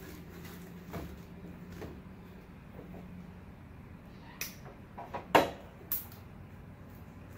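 Light clicks and knocks from handling a plastic spool of trimmer line as line is pulled off it, over a steady low hum. A few come close together around five seconds in, the loudest about five and a half seconds in.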